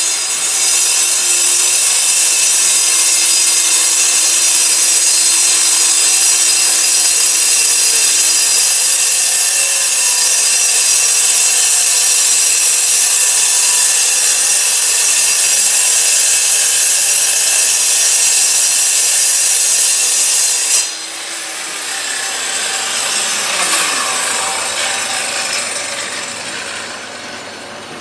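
Hilti concrete cutting saw running loud and steady, with a high, harsh whine as it cuts concrete. About three-quarters of the way through the sound drops off suddenly, and the motor winds down, its pitch falling, leaving a quieter whirring.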